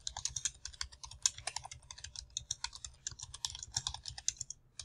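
Typing on a computer keyboard: a quick, uneven run of keystrokes that stops near the end.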